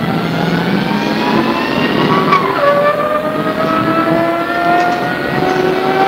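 MAN SL200 city bus accelerating, heard from inside the bus: the whine of the engine and automatic gearbox climbs steadily in pitch, drops sharply about two and a half seconds in as the gearbox shifts up, then climbs again.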